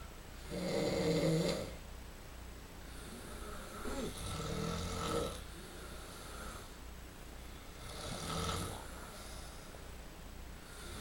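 Men snoring loudly in their sleep: three long snores, roughly every three and a half seconds, the first the loudest.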